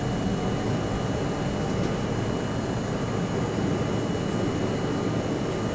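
New York City subway C train running steadily through a tunnel, heard from inside the car: an even rumble of wheels on rails and motor noise.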